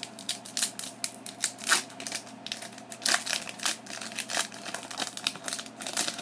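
Foil wrapper of a Pokémon card booster pack crinkling and crackling in quick, irregular rustles as it is opened and handled.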